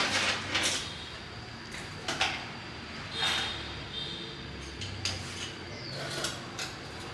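About five short clatters and clicks of hand-handled tools and test leads against the TV's plastic back and circuit boards, with a faint steady high tone underneath.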